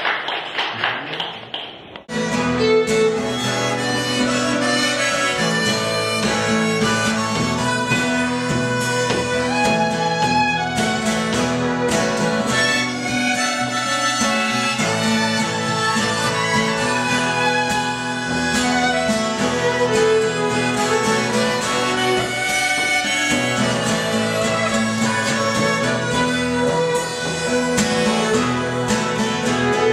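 Live acoustic trio sound of acoustic guitar, violin and harmonica playing an instrumental passage together. About two seconds in, the sound before it fades and cuts off abruptly, and the new tune starts at full level.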